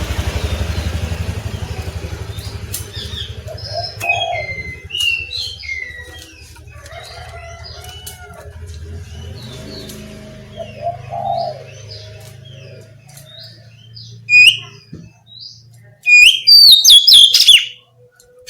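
Oriental magpie-robin (kacer) singing a varied run of short whistled and chirped notes, ending in a loud burst of rapid, high notes about three-quarters of the way through, over a low hum.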